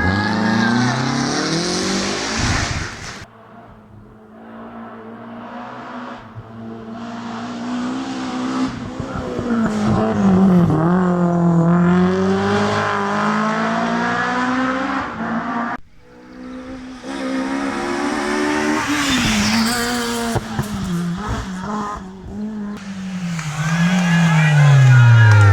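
Historic rally cars passing one after another at speed, engines revving up and dropping back through gear changes. The sound falls away abruptly about three seconds in and again past the middle before the next car approaches.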